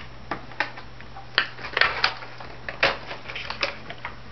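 Cardboard box and packaging being handled and pulled apart: about a dozen irregular sharp clicks, taps and crinkles.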